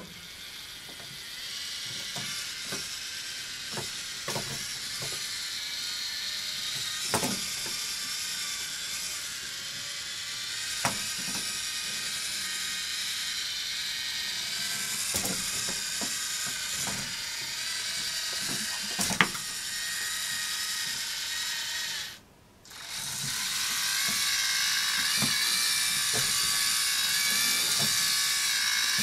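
Lego Mindstorms EV3 walking elephant robot: its motors and plastic gear trains whir steadily while it walks, with irregular clicks and knocks from the gears and legs. The whirring stops for a moment about three-quarters of the way through, then starts again a little louder.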